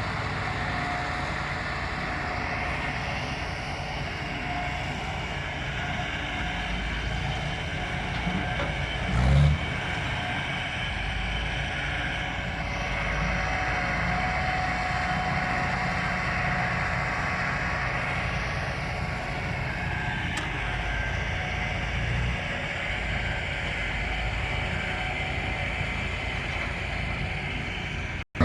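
A motor vehicle's engine running steadily, a low even rumble with a short thump about nine seconds in.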